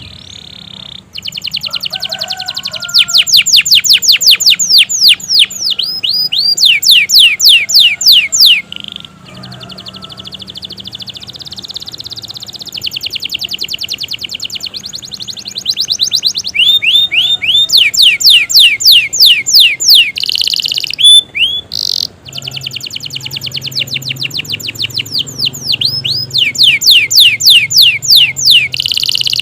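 Domestic canary singing a long, loud song: fast trills of sharp falling high notes repeated in rapid runs, changing from one roll to the next and broken by brief pauses.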